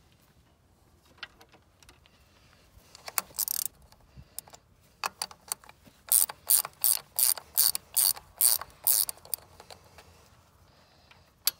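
Hand ratchet wrench clicking as it tightens a fitting on a John Deere 4840's diesel fuel lift pump while the primer pump is refitted. Scattered clicks at first, then a run of quick, even ratcheting strokes, about four a second, for some three seconds, and a single sharp click near the end.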